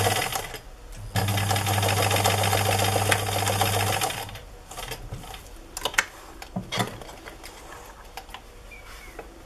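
Electric sewing machine stitching a seam through fabric: a short run, a brief pause, then a steady run of about three seconds before it stops. A few light clicks follow.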